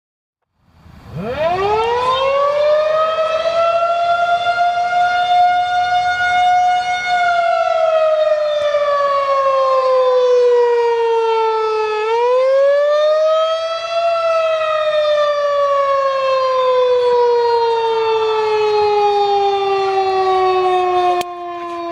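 Federal Signal 2001 electromechanical outdoor warning siren starting up from silence about a second in, winding up to a steady high pitch, then sliding down, winding up again about halfway through and slowly falling in pitch once more: a wail during a siren test.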